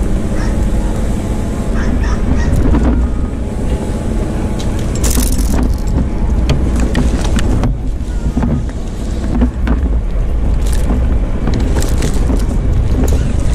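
A steady low rumble overlaid with many sharp clicks and knocks: climbing rope hardware and pine branches rubbing and knocking as a tree climber lowers himself on his climbing line.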